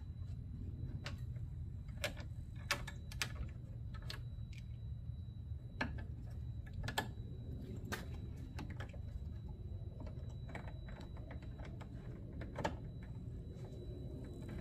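Irregular small clicks and taps of screws and plastic parts being handled and fastened by hand in a van's front-end grille frame, over a low steady background rumble.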